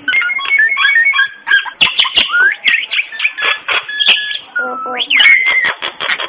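Common myna singing: a fast, varied run of chirps, whistles and sharp clicks, with rising glides around the second and fifth seconds.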